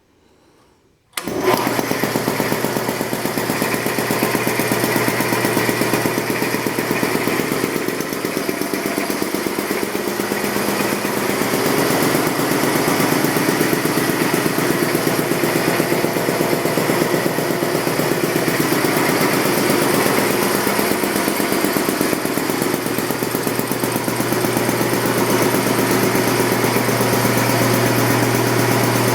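1967 Champion two-cylinder, two-stage air compressor, driven by a 2 hp GE electric motor, starting up about a second in and then running steadily with a fast, even pumping pulse as it fills the tank.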